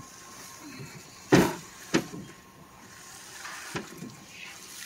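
Clear plastic wrap crinkling and rustling as it is pulled off a bare aluminium engine block, with three sharp knocks, the loudest about a second and a half in.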